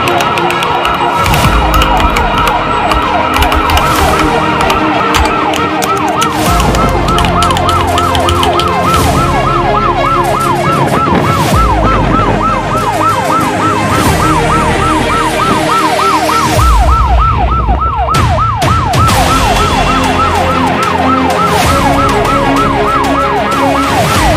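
Fire truck siren on a fast warble, its pitch sweeping up and down about three times a second. It is heard from aboard the moving truck, with engine and wind rumble underneath.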